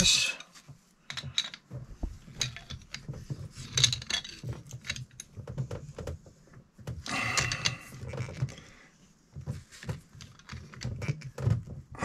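Metal tools clicking and clinking on a brass fitting in irregular short knocks, as tongue-and-groove pliers and a wrench tighten a braided faucet supply hose onto its connector.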